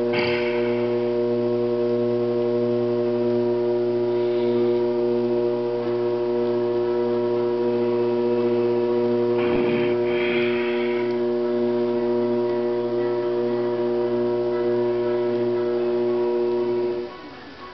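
Electric potter's wheel motor humming steadily, then cutting off suddenly near the end. Brief rubbing or scraping noises come over the hum, the clearest about halfway through.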